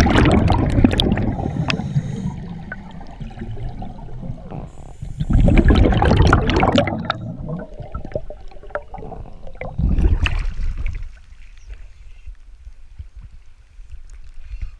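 Scuba diver breathing through a regulator underwater: three loud bursts of exhaled bubbles about five seconds apart, with a faint high hiss of inhaling between them. From about eleven seconds in, after the surface is reached, only quieter water sloshing against the camera.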